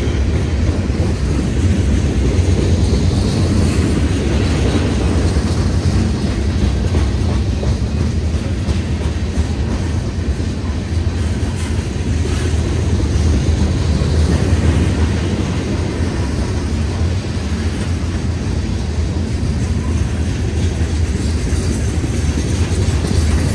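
Freight train cars rolling past: a steady low rumble with the faint clicking of wheels over the rails.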